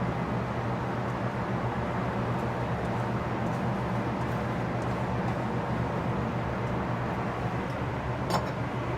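Steady fan-like noise with a low hum, and a faint clink near the end.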